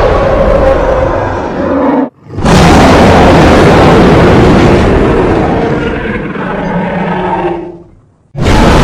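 Custom-designed Vastatosaurus rex roar sound effects, loud and growling. One roar cuts off about two seconds in, a second roar of about five seconds follows and fades away, and a third begins just before the end.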